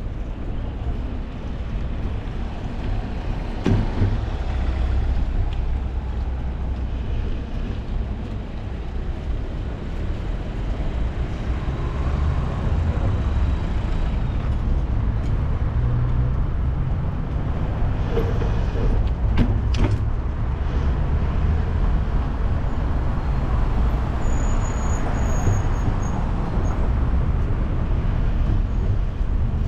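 Steady low rumble of wind and road noise from a bicycle ride along city streets, mixed with passing car traffic. A few sharp clicks about four seconds in and again around eighteen to twenty seconds.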